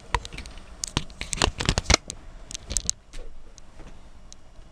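Small metal clicks and scrapes as a short copper wire is worked into a pin hole of a VGA port socket. There is a quick cluster in the first three seconds, then only a few scattered ticks.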